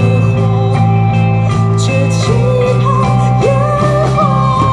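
Live rock band playing: bass guitar, electric guitar, cello and drum kit with cymbal hits, amplified through stage speakers. A sung melody comes in about two seconds in.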